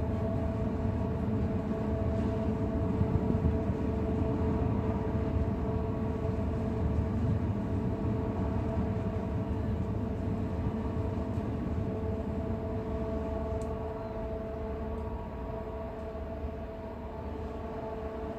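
Steady low rumble of a large cruise ship's machinery with a constant droning hum over it, easing slightly near the end.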